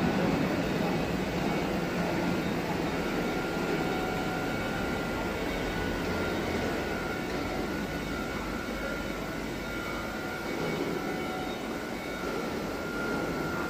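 Steady mechanical drone of machinery in a factory hall, with a faint high whine that grows stronger about halfway through.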